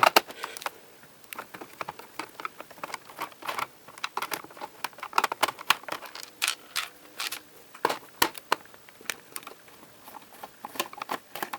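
Irregular light clicks and taps of a screwdriver and small screws against the plastic underside of a laptop, as the screws of the RAM cover are undone.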